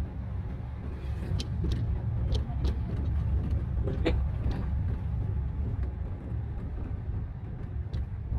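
Steady low rumble of a Daihatsu manual car's engine and tyres heard from inside the cabin while the car creeps slowly along in low gear, with a few light clicks between about one and four seconds in.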